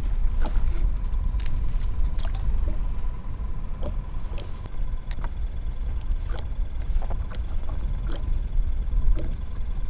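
Wind rumbling on the microphone and water lapping against a kayak hull, with scattered small clicks and taps of fishing tackle being handled.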